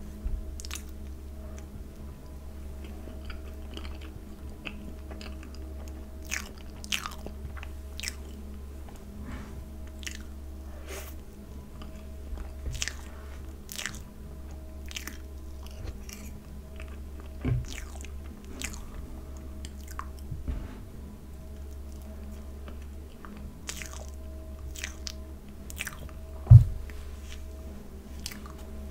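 Close-miked eating of soft cream cake: wet mouth clicks and chewing in short, scattered snatches over a steady low hum. A couple of low thumps stand out, the loudest a little before the end.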